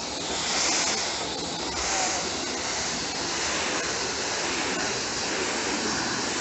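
2000 PSI pressure washer jet spraying steadily onto a concrete floor, a continuous hissing rush of water rinsing the cleaned patch.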